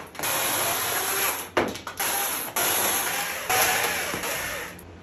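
Chainsaw cutting into the top of a cedar log, revving in a run of bursts with short easings between them, then dropping back to idle near the end.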